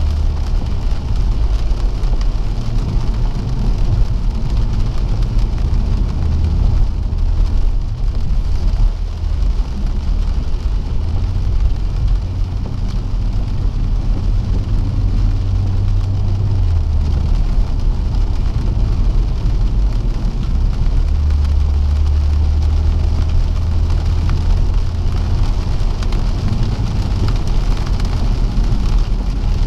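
Inside the cabin of a BMW M140i driving on a wet road: steady hiss of tyres on water and rain on the windscreen, over a low drone from its turbocharged straight-six that swells and eases now and then.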